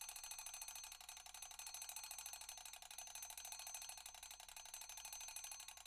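Mechanical alarm clock ringing: its hammer rattles rapidly and evenly against the bell, without a break.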